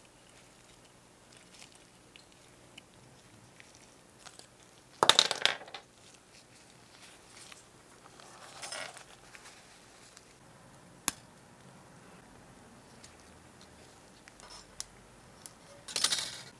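Small handling sounds at a model-making bench: light clicks and taps of tiny metal parts and tools on a cutting mat, with short louder rasps about five seconds in and near the end and a single sharp click about eleven seconds in, as curved scissors snip small photo-etched metal parts from their fret.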